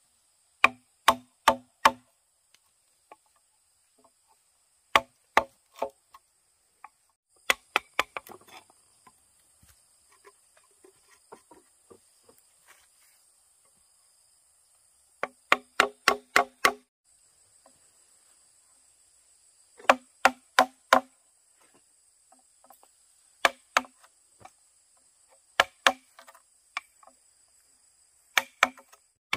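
Bamboo being chopped with a blade in quick bursts of two to six blows, about eight bursts, each blow giving a short ringing knock. Insects buzz steadily and high-pitched behind.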